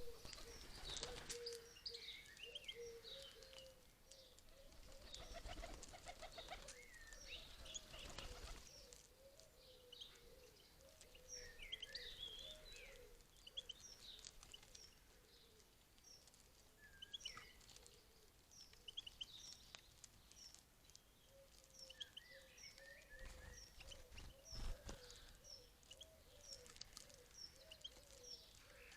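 Faint twittering of European goldfinches, many short high chirps scattered throughout, over a low wavering tone. A few brief flurries of rustling noise come about a second in, around six to eight seconds in, and again around twenty-four seconds in.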